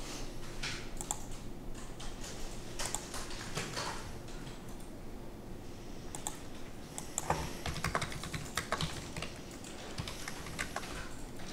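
Computer keyboard typing and mouse clicks: scattered irregular clicks, with a quick run of keystrokes a little past the middle, over a faint steady hum.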